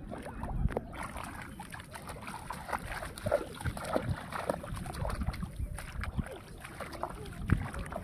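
Feet wading through shallow muddy water, with irregular sloshes and splashes.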